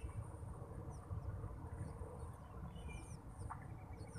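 Outdoor lakeside ambience: small birds give short downward chirps several times, over a steady high insect buzz that comes and goes and a low rumble.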